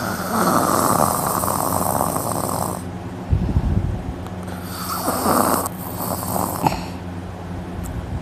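A person snoring loudly in deep sleep, the throat relaxed: two long snores, each a couple of seconds, with a short low rumble between them.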